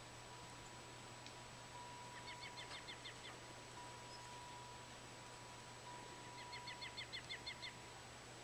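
A small songbird singing a trill of rapid repeated notes, about eight a second, heard twice about four seconds apart, over a steady hiss.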